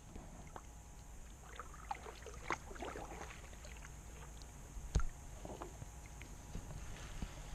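Small knocks and rattles of gear moving in a kayak, with one sharper knock about five seconds in, over a faint low rumble.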